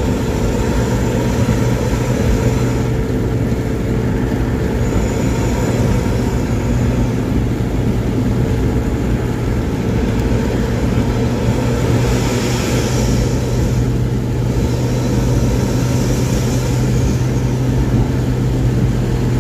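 Intercity bus's deep 'ngorok' (snoring) exhaust drone, held steady at cruising speed, over a rush of tyre and road noise on a wet road. A hiss of tyre spray swells twice in the second half.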